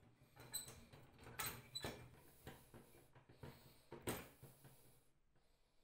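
Small metal toy tricycle parts being handled and worked by hand at the pedal crank: light scraping with a few sharp metallic clicks, the loudest about four seconds in.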